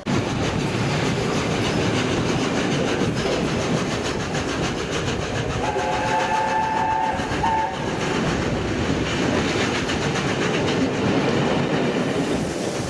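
A train passing close through the station at speed, a loud steady rush of wheels on rail. About six seconds in, it sounds a warning signal: a held chord of several notes, just under two seconds long.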